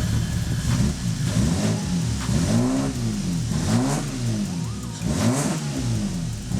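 Toyota Supra's 2JZ straight-six, fitted with aftermarket cams, being blipped: the revs rise and fall back about five times in a row. The engine has just been got running after a rebuild.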